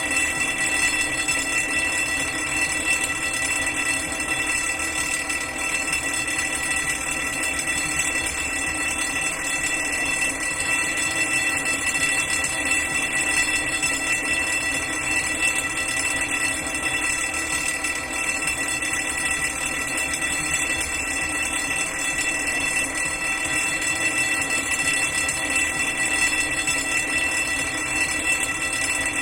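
Electric fire alarm bell ringing continuously: a loud, unbroken metallic ring of several steady tones.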